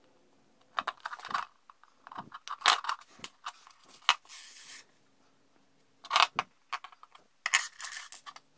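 Hands handling thin motor wires and small metal bullet connectors on a tabletop: irregular clusters of light clicks, taps and rustles, in five short bursts with quiet gaps between.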